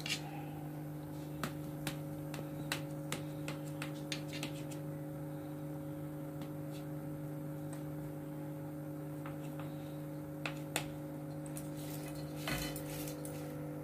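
Kitchen knife tapping and scraping on a steel plate while cutting a soft slab of ground lentil paste into pieces: scattered light clicks over a steady low hum.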